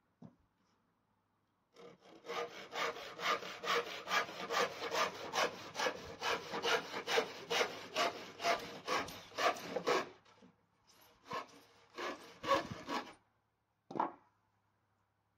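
Hand saw cutting through a wooden board in steady back-and-forth strokes, about two a second. It pauses briefly and then makes a few more strokes. One short separate sound follows near the end.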